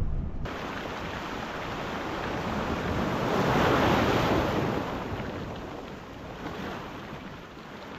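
Ocean surf: one wave washing in, building to its loudest about four seconds in, then fading away.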